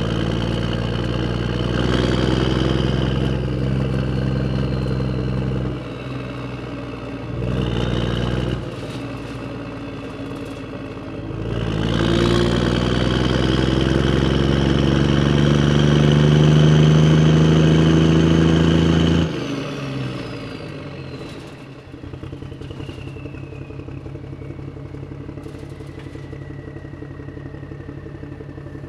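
Truck engine running, cutting in and out abruptly, then revving with its pitch rising for several seconds before stopping suddenly about two-thirds through. After that it drops to a quieter, fast, even idling rattle.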